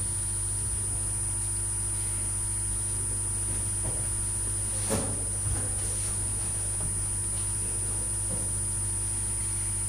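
Steady electrical mains hum with a thin high whine over it, and a single knock about five seconds in.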